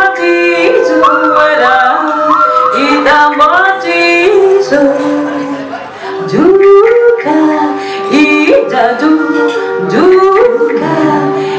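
A woman singing into a microphone, short notes sliding up and down over steady held notes.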